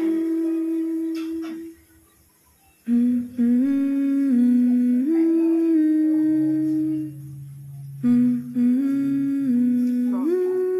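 A woman humming a slow tune with her mouth closed, in long held notes that step up and down, with a short pause about two seconds in.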